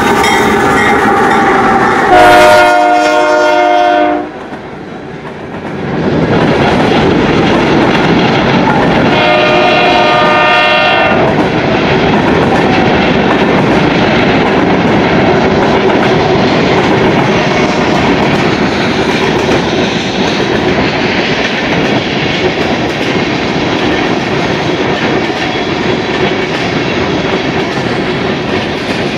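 Union Pacific freight train passing close by: a loud blast of the locomotive's multi-note horn about two seconds in, cutting off sharply, and a second, fainter horn blast around ten seconds in. Under and after the horn, the steady rumble and wheel clatter of the freight cars rolling past.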